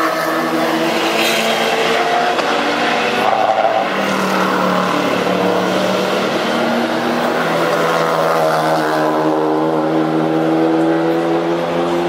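Race car engines running through a corner one after another, their note shifting and rising in pitch as they accelerate away, the last one rising steadily near the end.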